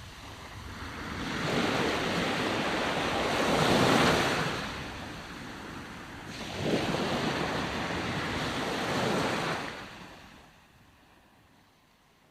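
Ocean waves breaking on the shore: two waves come in, the first swelling to its loudest about four seconds in, the second arriving near the middle and washing out for a few seconds. The surf then fades away to near silence near the end.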